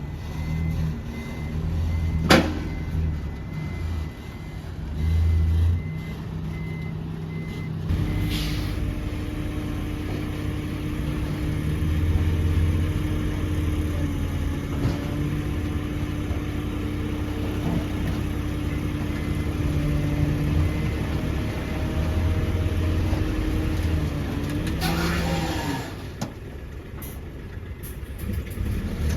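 Heavy diesel machinery, dump trucks and an excavator, running steadily. A faint reversing alarm beeps during the first several seconds, a sharp knock comes about two seconds in, and short hisses of released air come about eight seconds in and again near the end.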